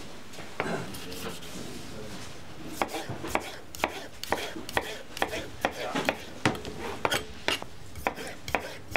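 Kitchen knife dicing tomatoes on a plastic cutting board, the blade knocking on the board. One knock comes a little under a second in; from about three seconds in the knocks run steadily at about two a second.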